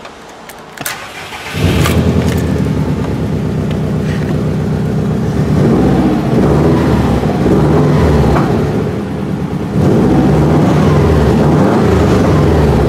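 Subaru Impreza's flat-four engine starting about a second and a half in, then running and being revved in neutral through a loud aftermarket muffler (a "fart cannon"). The revs dip briefly near ten seconds, then climb again.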